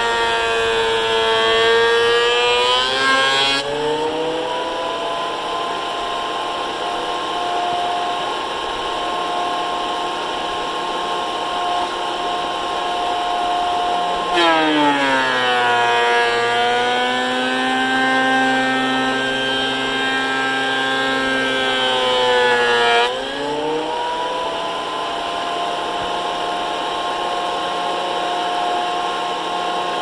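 Harbor Freight benchtop thickness planer cutting solid oak boards: its motor whine sinks in pitch and turns rougher under load while a board feeds through, and rises back to a steady free-running whine once the board clears, about four seconds in. Near the middle a second board goes in, the pitch drops sharply and stays low under load for about nine seconds, then climbs back to the free-running whine.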